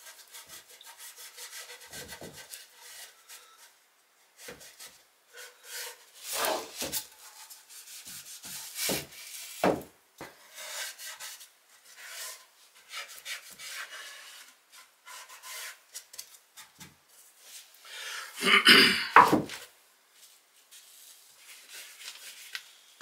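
A rag rubbing powder stain onto the edges of a wooden bracket, in irregular scrubbing strokes with short pauses. A few strokes are louder, the loudest about three-quarters of the way through.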